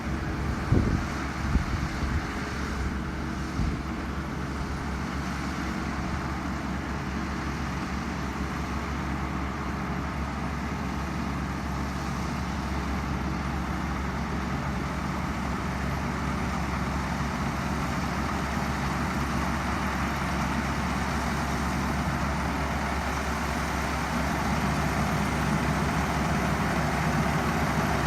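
Kubota 128-horsepower six-row combine harvester running steadily, a constant engine and machinery drone, with a few brief knocks in the first second. It grows slightly louder near the end.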